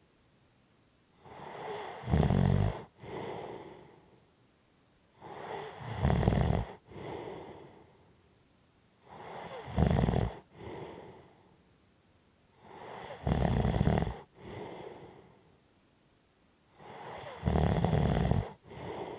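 A person snoring with heavy breathing in a slow, regular rhythm: five breaths, about one every four seconds. Each is a rising inhale that ends in a loud, low snore, followed by a softer exhale and a short pause.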